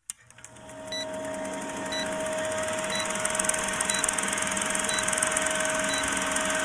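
Old film projector sound effect: a steady whirring hiss with rapid clicking of film running through the gate, over a constant tone, with a short high beep about once a second marking the countdown. It fades in over the first second.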